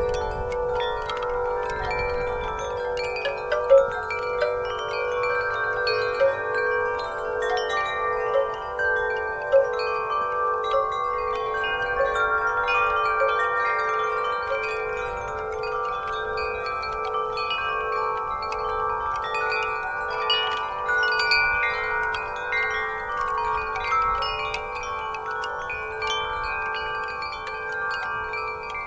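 Wind chimes stirred by a breeze, ringing continuously: many overlapping sustained notes with frequent light strikes, over a lower note that throbs evenly.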